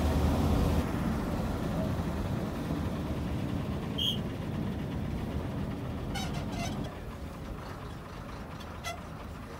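Small bus running on a winding hill road, heard from inside: a steady low engine rumble and road noise, louder for the first second. A single short high beep sounds about four seconds in, and a few light clicks and rattles follow near the end.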